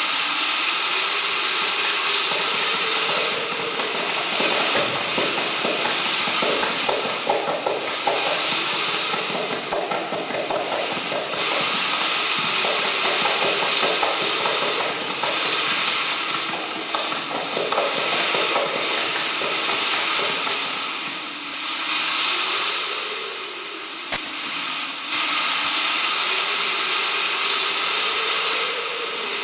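Loud, steady rushing hiss with a faint low drone that slowly wavers up and down in pitch, dipping briefly about three-quarters of the way through: a noise-like soundscape played for the dance-theatre piece.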